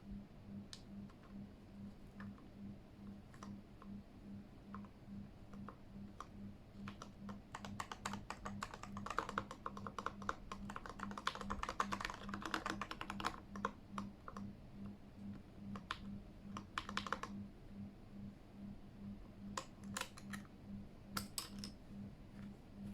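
Typing on a Keychron K8 mechanical keyboard: scattered single key clicks, a fast run of typing in the middle, then a few more clicks near the end. A low hum pulses about twice a second underneath.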